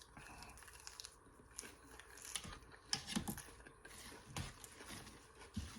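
Quiet eating sounds close to the microphone: soft, irregular clicks and smacks of food being chewed.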